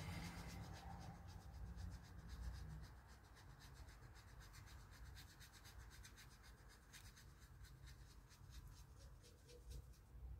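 Faint, scratchy rubbing of a watercolour paintbrush working paint, in quick repeated strokes, over a low steady hum.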